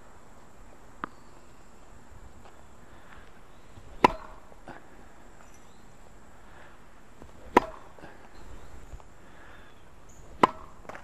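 A tennis racket strikes the ball on three serves: three sharp, loud pops roughly three seconds apart, with a fainter tap about a second in.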